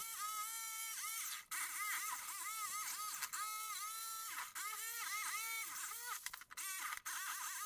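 Small handheld electric router running at high speed while cutting MDF. Its whine keeps dipping in pitch as the bit bites and recovering, over and over, with a few brief breaks where the cut pauses.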